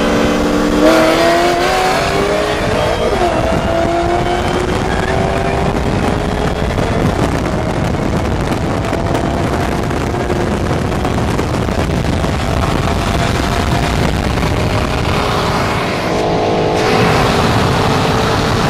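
Car engine pulling hard at full throttle, its note climbing slowly and steadily through a long gear, under heavy wind and road noise at speed. The note changes pitch near the end.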